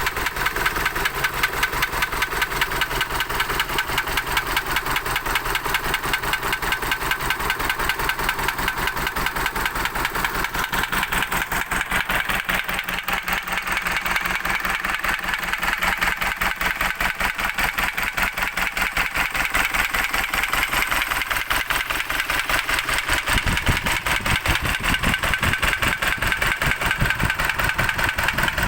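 Isuzu 4JJ1 four-cylinder turbo diesel idling with a rapid, regular knock, the engine fault the owner is showing.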